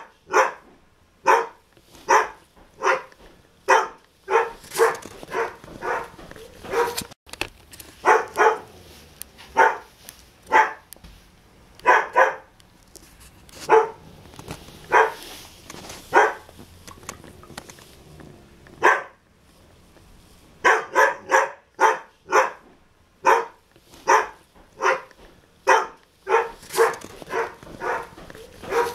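Dog barking over and over in runs of quick, sharp barks, with a break of a couple of seconds past the middle.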